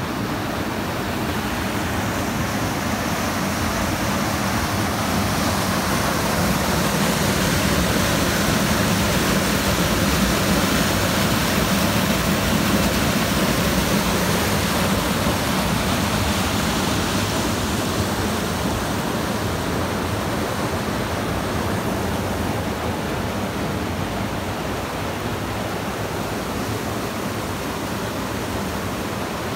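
Mountain river rushing over granite rocks through a narrow channel and rapids, a steady sound of white water that swells louder in the middle and eases off toward the end.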